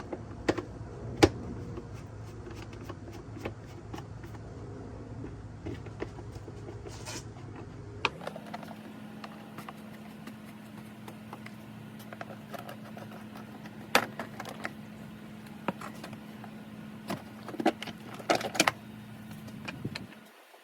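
Scattered clicks and knocks of a screwdriver and hands working the plastic air filter housing of a 2012 Chrysler 300 open, over a steady low hum. The background hum changes abruptly about eight seconds in.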